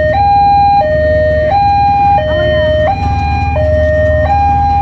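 Railway level-crossing warning alarm sounding: a loud electronic two-tone signal alternating between a lower and a higher note, each held about 0.7 s. It warns that a train is approaching the crossing.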